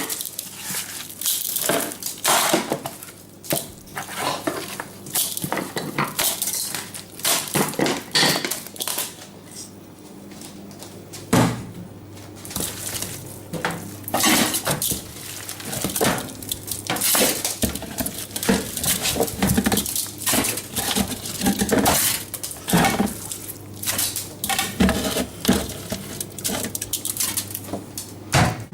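Kitchen cookware and utensils clinking and knocking irregularly, many separate strikes of metal and dishes.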